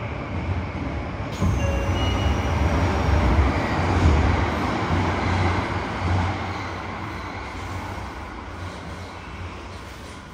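Running noise of a Yokohama Municipal Subway 3000S car heard from inside the car: a heavy low rumble from the wheels and running gear. It gets louder about a second in, then fades steadily over the last few seconds as the train slows into a station.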